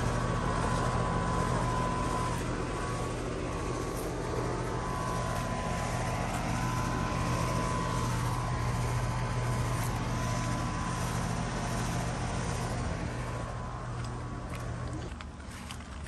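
Goodman outdoor condensing unit running: a steady low compressor hum under the even rush of its condenser fan, fading away near the end.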